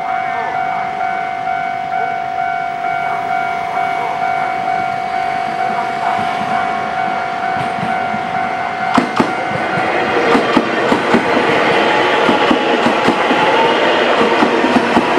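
A level-crossing warning signal sounds steadily. About nine seconds in, it gives way to a Taiwan Railways electric multiple unit passing close by, its wheels clattering rhythmically over the rail joints.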